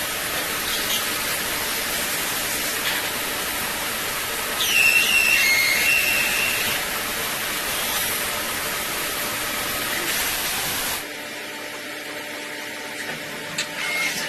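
DMG MORI vertical machining centre milling a small part under flood coolant: a steady spraying hiss, with a high-pitched cutting whine from about five to seven seconds in. About eleven seconds in the hiss drops off suddenly and the machine runs quieter.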